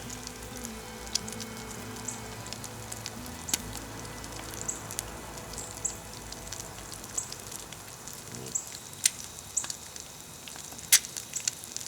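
An egg frying in oil in a small pan, a steady sizzle with frequent crackles and pops.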